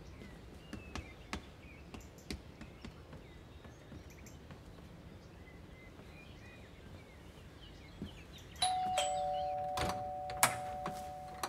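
Two-tone ding-dong doorbell chime: a higher note and then a lower one, both ringing on and slowly fading over a few seconds. Before it there is a quiet stretch of room tone with faint bird chirps, and a couple of sharp clicks of the door latch come while the chime rings.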